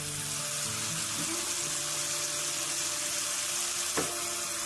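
Onion-and-spice masala thinned with a little water, bubbling and sizzling steadily in a nonstick frying pan, with one light click about four seconds in.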